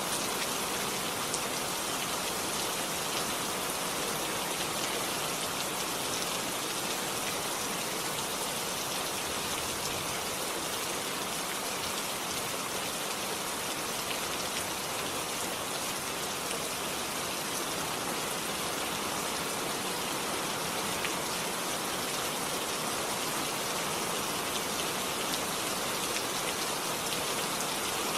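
Steady rainfall, an even hiss of dense drops falling on a surface, with faint scattered drop ticks.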